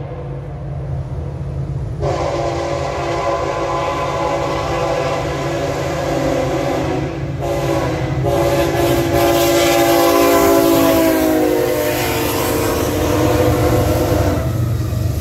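Diesel freight locomotives' multi-note air horn blowing long blasts with two short breaks as they approach, over the rumble of the engines; the horn's pitch drops as the locomotives pass, and it stops near the end, leaving the steady rumble of double-stack container cars rolling over the rails.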